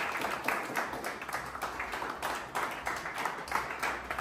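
A group of people clapping hands together in a steady rhythm, about three claps a second, cheering on a lifter at the bench press.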